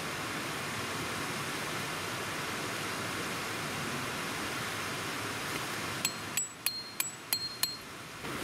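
A hammer strikes a metal tent peg about five times in quick succession near the end, several blows leaving a short metallic ring. Before that there is only a steady rushing hiss.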